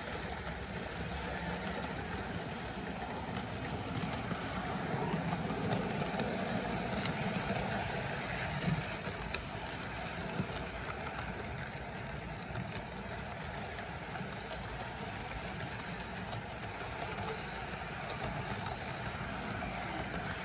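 Model freight train running past on sectional plastic-roadbed track: a steady rumble and clatter of wheels and motor, a little louder about four to nine seconds in as the locomotives go by, with a sharp click near nine seconds.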